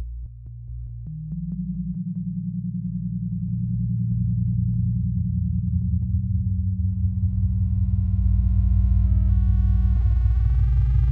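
Dark electronic score: a low synthesizer drone with a faint steady pulse, joined about seven seconds in by a distorted buzzing tone, growing louder throughout.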